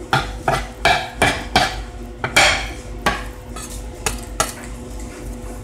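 Sharp taps and clicks of garlic cloves and a knife being handled on a wooden cutting board, about eight in quick succession over the first three seconds, then a few lighter ticks.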